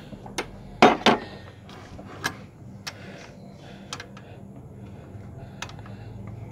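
Irregular metallic clicks and knocks from work on the alternator's threaded adjuster bolt as a new drive belt is being tensioned, the loudest pair about a second in.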